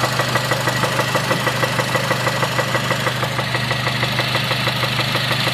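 2006 Honda Civic Si's K20 four-cylinder engine idling with a steady, rapid knock, several knocks a second. Listed as rod knock at 122k miles, though those listening suggest it could be spark knock or vibration from a part touching the engine.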